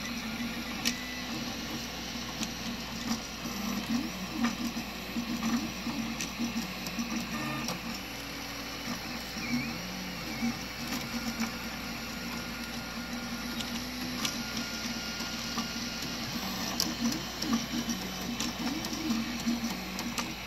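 FDM 3D printer printing: its stepper motors give short tones that keep changing pitch as the print head moves back and forth. Underneath is the steady hum of the hotend and part-cooling fans, with scattered light ticks.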